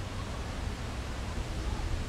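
Outdoor background noise: a steady hiss with a low, uneven rumble of wind buffeting the microphone.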